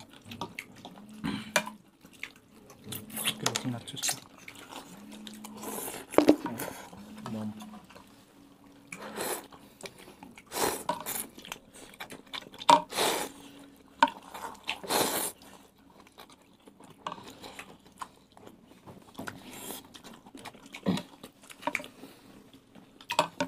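Metal spoons clinking and scraping against bowls as several people eat noodles, with slurping and chewing. There are a few louder, short slurps in the middle.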